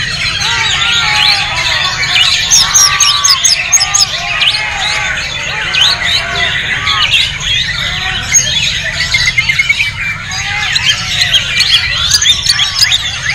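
White-rumped shamas singing, a dense, overlapping mix of fast whistles, trills and chattering phrases from several caged birds at once, over a steady low rumble.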